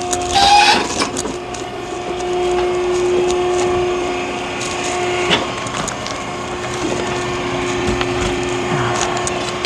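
Hydraulic log splitter running with a steady hum while oak logs split under it, with sharp wood cracks about half a second in and again around five seconds in.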